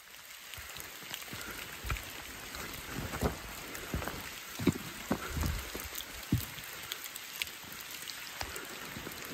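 Steady rain falling, a fine even hiss with scattered drop ticks, with a few irregular low thumps of footsteps as someone walks along a wet trail.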